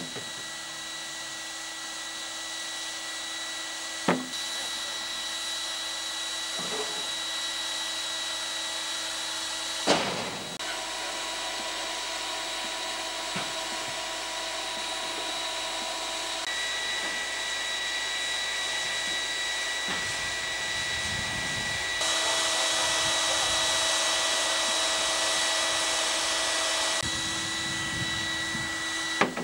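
Steady hiss of steam from a standing Queensland Railways D17-class steam locomotive, louder for about five seconds in the last third. A few sharp clicks break in, the loudest about four and ten seconds in.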